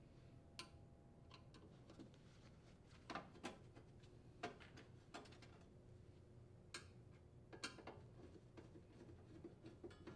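Faint, irregular clicks and light metallic ticks of a Phillips screwdriver unthreading screws from a sheet-metal control box cover, against near silence.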